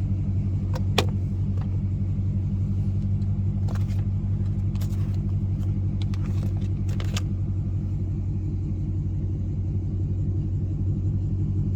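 Car engine idling, a steady low rumble as heard from inside the car, with a few sharp clicks and knocks between about one and seven seconds in.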